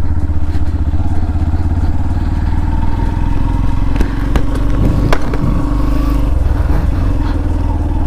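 Yamaha FZ-S V3's 150 cc single-cylinder engine running steadily as the motorcycle is ridden, with a few sharp clicks about halfway through.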